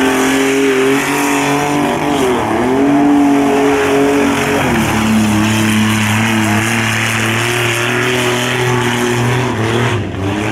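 Lifted mud-bog pickup's engine running hard under load as the truck churns through the mud pit. The pitch dips twice early on, then holds steady at a lower pitch.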